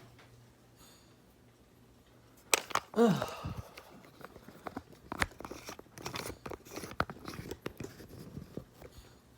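Steady low hum from a Harbor Breeze Armitage ceiling fan, then from about two and a half seconds in a loud clatter followed by repeated clinking and knocking: metal silverware being put away into drawers.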